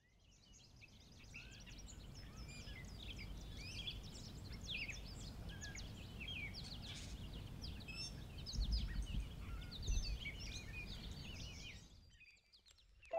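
Outdoor ambience of many songbirds chirping and trilling together over a low rumble, which swells a little twice in the second half. It fades in at the start and fades out shortly before the end.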